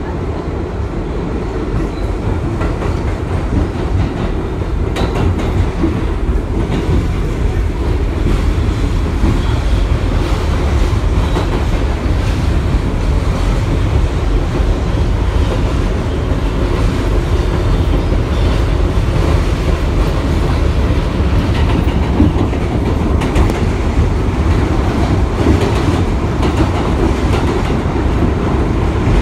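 Bombardier R62A subway car heard from inside while running on the rails: a steady, loud rumble of wheels and motors with scattered clicks over the rail joints. It grows a little louder over the first several seconds as the train picks up speed leaving the station.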